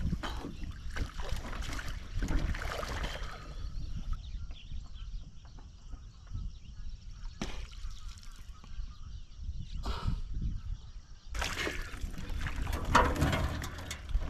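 Water splashing and sloshing against a small plastic boat as a swimmer moves at its side, dives under and resurfaces. Splashing for the first few seconds, a quieter stretch while he is under, then louder splashing again about two-thirds of the way in as he comes up and grabs the hull.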